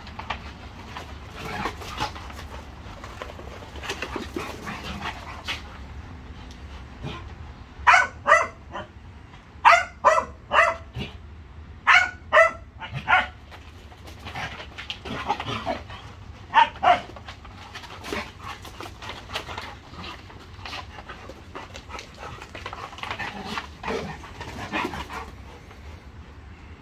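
Dogs barking as they play: scattered barks, with a run of loud, sharp barks about eight to thirteen seconds in and two more a few seconds later.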